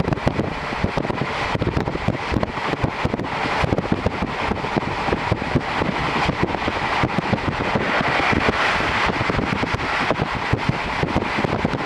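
Running noise inside a JR Series 711 electric train car with the window open: a steady rumble of wheels on the rails and rushing wind, dotted with many quick small knocks.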